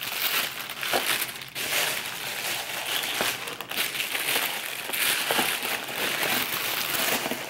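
Crinkly white wrapping being crumpled and pulled off a new leather boot: continuous rustling and crackling that stops right at the end.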